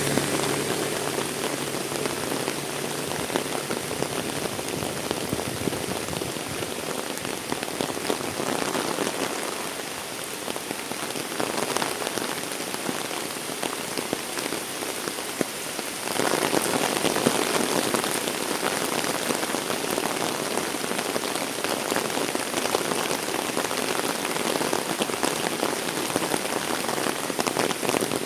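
Heavy rain falling steadily in a dense hiss, growing louder a little past halfway through.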